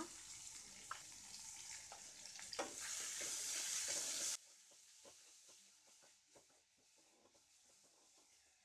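Chopped cabbage, carrot and beans sizzling in hot oil in a kadai as they are stirred with a wooden spatula, with a few knocks of the spatula. The sizzle grows louder, then cuts off suddenly about four seconds in, leaving only faint scrapes and taps of the stirring.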